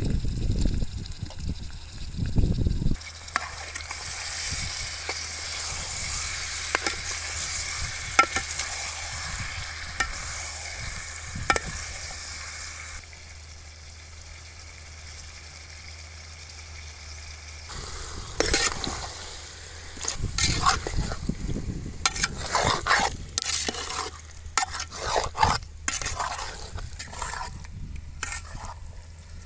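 A metal spoon stirs and scrapes chicken pieces in an aluminium pot, with irregular clinks and scrapes in the last ten seconds or so. Before that comes a steady hiss with scattered clicks.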